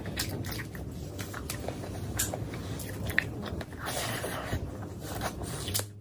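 Close-miked eating by hand: wet chewing and smacking of a mouthful of rice and curry, with many short sharp clicks scattered through it.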